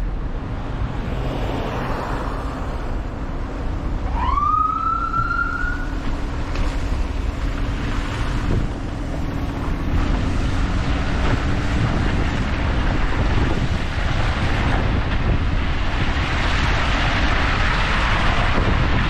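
Steady wind and street traffic noise, with a single short rising siren whoop about four seconds in.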